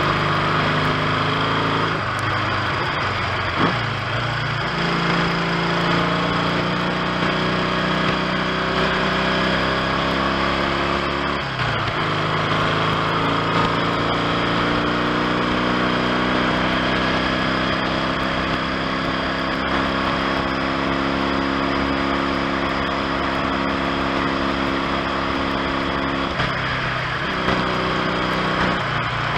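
1970 Triumph T100C 500 cc parallel-twin engine running under way. Its note climbs steadily in pitch, then breaks off and drops back several times as it changes gear, with wind and road noise underneath.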